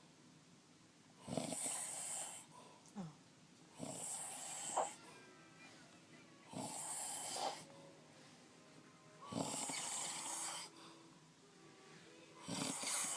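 A sleeping man snoring, about five snores at an even pace, one every two and a half to three seconds, with quiet pauses between them.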